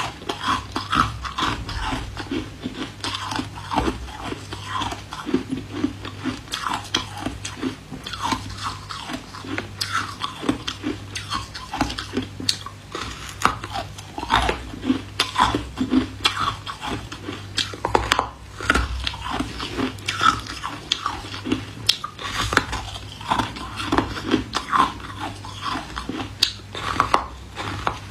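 Close-up biting, crunching and chewing of a moulded block of hard ice. Irregular crunches come several times a second throughout.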